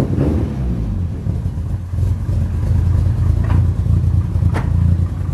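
Toyota Starlet's turbocharged four-cylinder engine running at idle just after being started cold, a steady low hum, with two sharp clicks about a second apart near the end. The engine has just been rebuilt and is suspected of a spun bearing.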